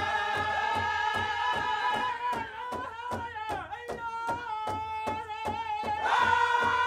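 Pow wow drum group singing over a big drum struck in a steady beat, about four beats a second. The full chorus drops away about two seconds in to a quieter, wavering vocal line, then comes back in loudly near the end.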